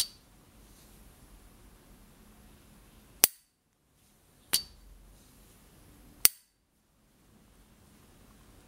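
S. T. Dupont Ligne 1 gas lighter's hinged lid being flicked open and snapped shut: four sharp metal clicks, at the start, about three seconds in, about four and a half seconds in and about six seconds in, several with a short high ringing ping.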